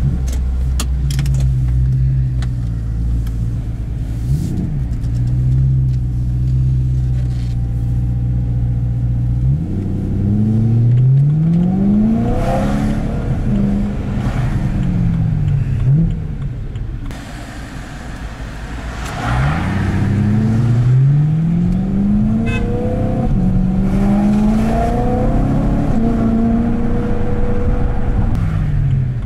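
BMW M3's S65 V8 heard from inside the cabin. It runs steadily at low revs for about the first ten seconds, then accelerates through the gears in several rising pulls, each broken off by a shift. A short quieter stretch past the middle is followed by more rising pulls.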